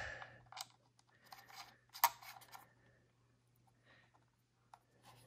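Faint, scattered clicks and short rustles of small plastic parts being handled, the sharpest click about two seconds in: the thumb sticks being fitted to the DJI Mini 2's remote controller.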